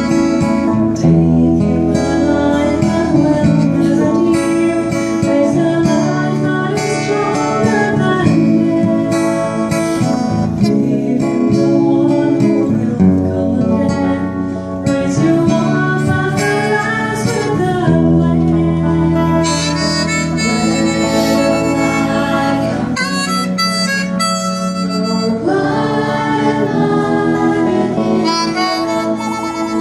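A woman sings a hymn, accompanied by two guitars, one of them a strummed acoustic guitar. In the later part a harmonica joins with the melody.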